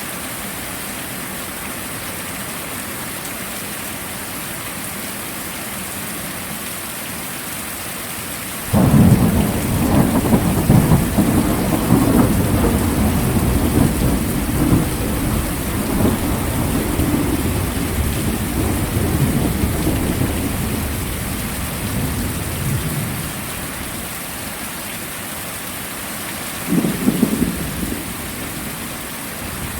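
Heavy rain falling steadily, with a long rolling thunder rumble that breaks in suddenly about a third of the way through and slowly fades, and a shorter clap of thunder near the end.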